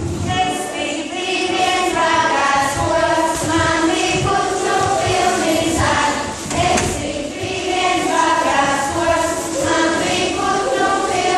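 A folklore group of girls and women singing a Latvian folk singing-game song together, in an unbroken run of short sung phrases.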